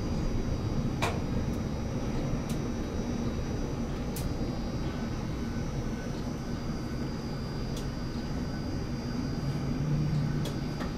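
Steady low mechanical drone of an overhead trash-bunker grab crane and its machinery, heard from inside the crane cab, with a few faint clicks.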